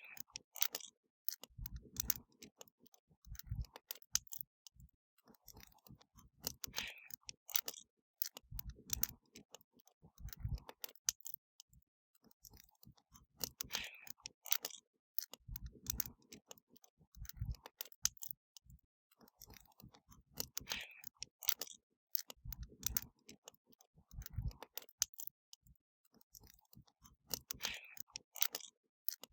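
Wood fire crackling, with sharp snaps and pops and pairs of low thuds. The same pattern of pops and thuds repeats about every seven seconds.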